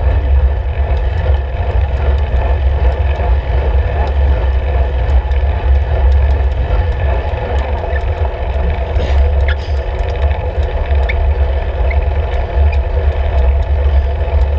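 Wind buffeting and road vibration on a camera mounted on a road bike's handlebars while riding, a steady loud low rumble with a faint hum above it.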